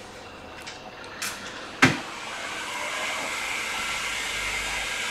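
A few light clicks and one sharp click about two seconds in, followed by the steady rushing hiss of an electric blower that builds toward the end.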